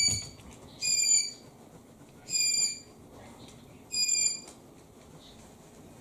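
Cockatiel giving a short, clear whistled call four times, about one and a half seconds apart, each call held at one pitch.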